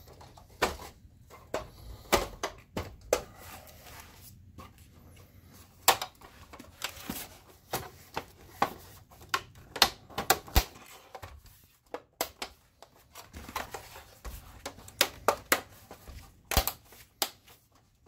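Plastic top cover of a BenQ HT2050 projector being pressed onto its chassis: a long run of irregular sharp clicks and knocks as the snap clips seat and the plastic panels knock together.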